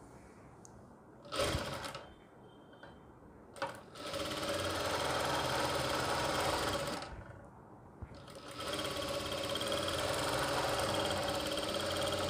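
Jack industrial lockstitch sewing machine stitching fabric in two steady runs, about three seconds and then about four seconds long, with a short pause between. A short knock sounds before the first run.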